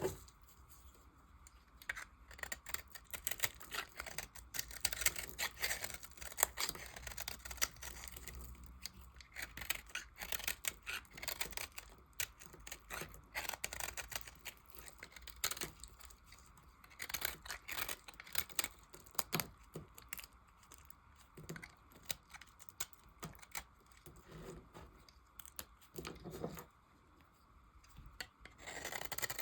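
Soap being cut: a dense run of crisp crunching cuts and scrapes, with a short pause near the end.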